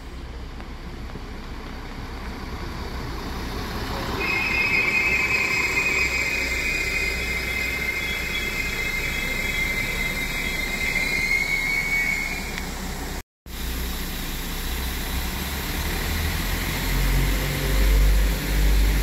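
Abellio regional multiple-unit train rolling into the station, its wheels giving a high, steady squeal for several seconds. Then, after a brief dropout, a low rumble swells and pulses as the cars pass close by.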